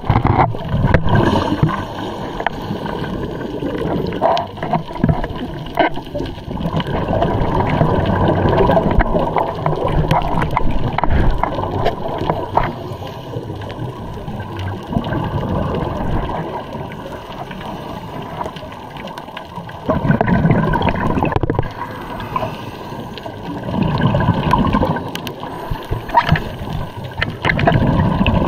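Scuba diver's regulator exhaling, streams of bubbles gurgling past the underwater camera, coming and going every few seconds with the breaths.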